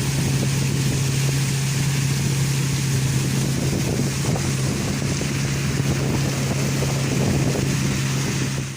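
Boat motor running at a steady speed, with wind buffeting the microphone and water rushing past.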